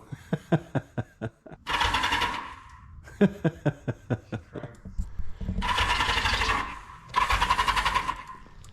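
Custom cafe racer motorcycle engine being cranked on its starter, turning over at about six or seven pulses a second, then catching three times in short bursts of about a second and dying again each time, with little or no petrol in it.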